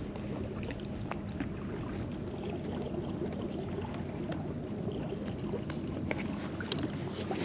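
Water swishing and lapping against a Hobie Compass kayak's hull as it moves, a steady wash with scattered light ticks.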